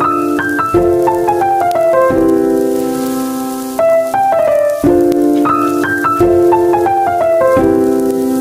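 Background music: a keyboard melody of held chords and short runs of notes falling in pitch.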